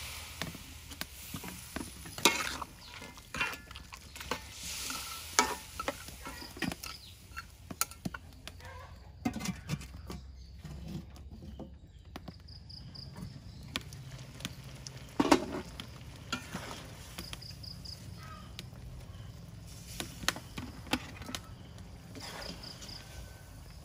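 A metal spatula knocking and scraping in a wok of simmering, sizzling sauce with giant river prawns in it, with a few sharp clanks. A few short, high insect chirps come in during the second half.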